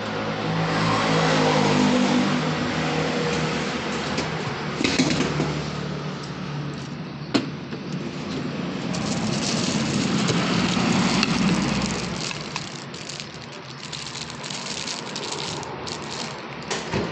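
Motor vehicles passing, their engine sound swelling and fading twice, with a couple of sharp clicks in between.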